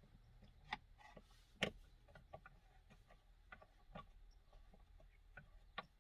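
Faint, irregular clicks and taps of a screwdriver and small screws being worked into the plastic steering-column trim, about seven in all, the sharpest about a second and a half in.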